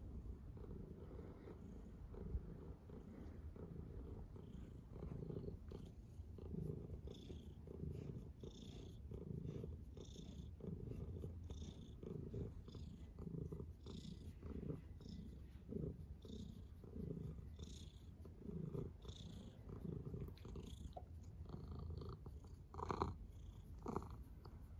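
Domestic cat purring steadily while its belly is rubbed, the purr rising and falling in pulses about once a second. There is a brief louder sound near the end.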